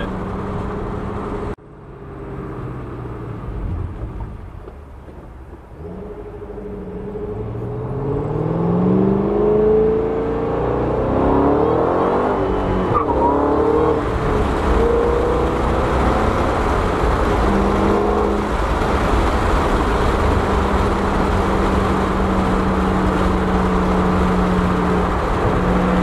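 Ford Shelby GT500's supercharged V8, heard from inside the cabin, accelerating hard through the gears, its pitch climbing and breaking at each shift from about seven to thirteen seconds in. It then settles into a steady drone at highway cruising speed.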